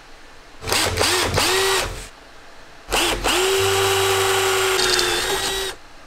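Small handheld electric power tool, such as a drill, run in two bursts. The first starts about half a second in, lasts under two seconds and wavers in speed. The second starts about three seconds in, comes up to speed and runs steadily for over two seconds before stopping shortly before the end.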